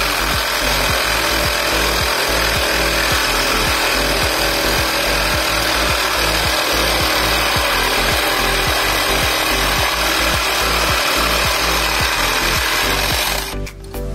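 Parkside PSSAP 20-Li B2 cordless reciprocating saw cutting through a thick iron bar, its blade stroking fast and steadily under load. The motor stops about a second before the end.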